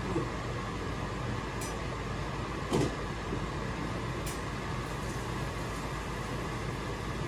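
Dishes being handled in a kitchen sink: a few light clinks and one louder knock about three seconds in, over a steady hiss.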